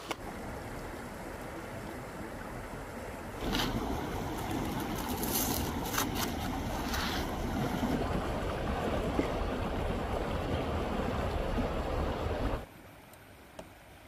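Steady rushing of a fast-flowing river with wind noise, louder through the middle and dropping suddenly near the end. A few sharp crackles stand out in the middle.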